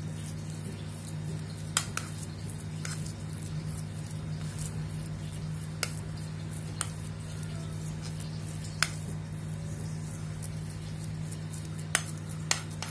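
A plastic spoon pressing and levelling a soft, mashed tofu and chicken mixture in a stainless steel bowl, with about seven sharp clicks where the spoon knocks the bowl. A steady low hum runs underneath.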